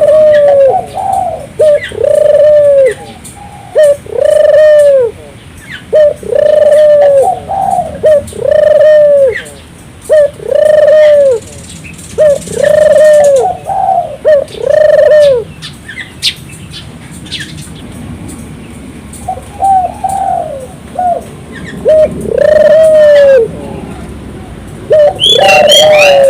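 Puter dove (Barbary dove) calling vigorously: a long run of loud, arching coos about one a second. Past the middle it breaks into shorter, scattered notes before the full coos return near the end.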